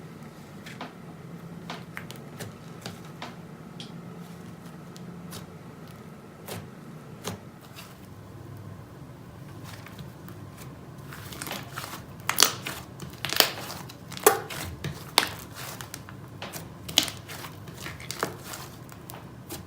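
Slime being squeezed and poked by hand, making sticky pops and crackles that grow louder and come thick and fast in the second half, over a low steady hum.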